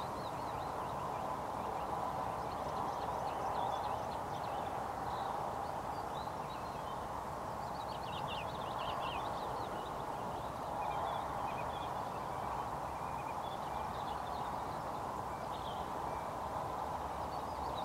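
Small songbirds twittering in short bursts at intervals over a steady background hiss.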